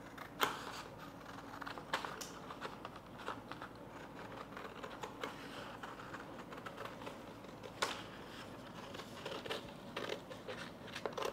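Scissors cutting a chart-paper blouse pattern apart: a run of small, irregular snips and paper rustling, with a few sharper clicks about half a second, two seconds and eight seconds in.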